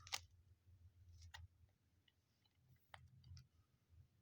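Near silence with a few faint, sharp clicks of trading cards being handled.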